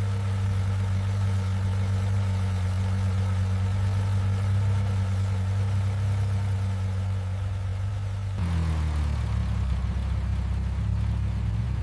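Ferrari V12 engine running at a steady, unchanging pitch. About eight seconds in, the sound changes abruptly to a slightly different engine note whose pitch wavers a little.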